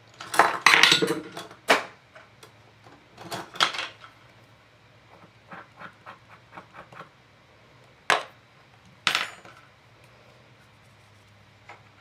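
Paintbrushes and small craft tools clattering and clicking as they are handled and set down on a tabletop: a quick run of knocks in the first two seconds, another cluster a little later, then light ticks and two sharp single clicks.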